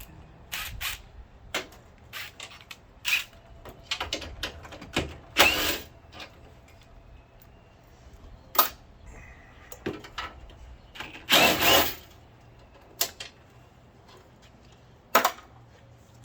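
Hand tools and metal parts clinking and clattering in irregular, separate knocks, with two longer rattles about five and eleven seconds in.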